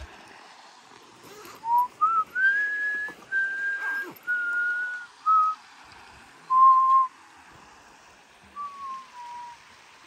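A person whistling a slow tune of about eight clear notes: it climbs over the first few notes, then steps down, and ends on a falling slide.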